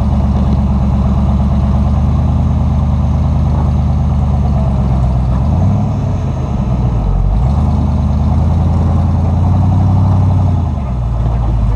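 Engine of a lifted off-road rock crawler running at low revs as it crawls up a rocky ledge, with the revs easing off about halfway through and again near the end.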